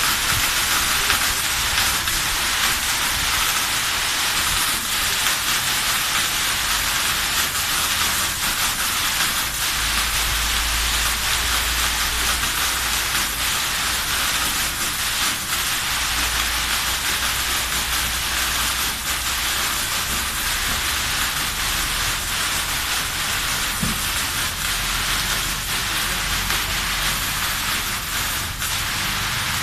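Fire sprinkler head discharging water during a flow test: a steady, rain-like hiss of spray.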